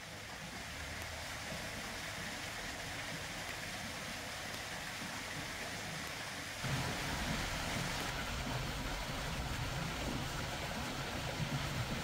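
Small waterfall pouring over a rock ledge into a pool: a steady rush of falling water, which becomes louder about six and a half seconds in.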